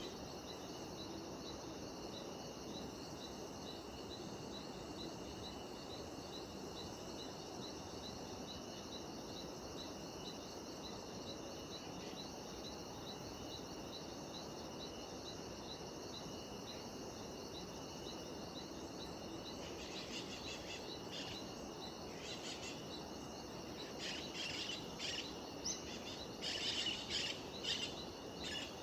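Steady high chorus of cicadas and other jungle insects with an evenly repeating pulse. From about twenty seconds in, birds call in quick, sharp bursts over it, growing louder toward the end.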